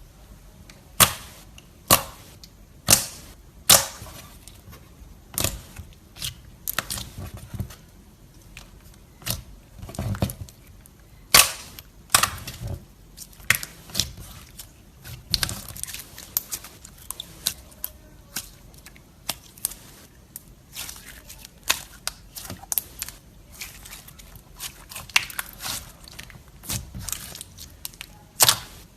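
Slime being squeezed and pressed, giving sharp, irregular pops and clicks, a few much louder than the rest.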